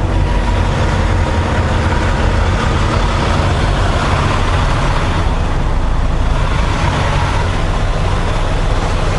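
Volvo VNL860 semi truck's diesel engine idling steadily.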